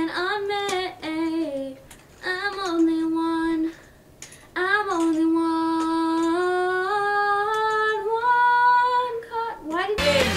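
A girl singing unaccompanied: several short phrases, then long held notes that step upward in pitch. Recorded band music cuts in at the very end.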